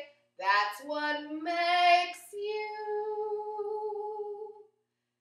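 A young woman's voice making wordless, sung calls: a few short notes that step up and down in pitch, then one long held note that stops shortly before the end.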